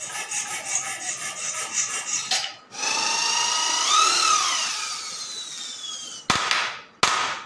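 Wood being rubbed or rasped by hand for about two and a half seconds. Then a handheld electric power tool runs for about three seconds, its pitch rising and falling as it takes the load. Near the end come two sharp knocks on the wooden plane body.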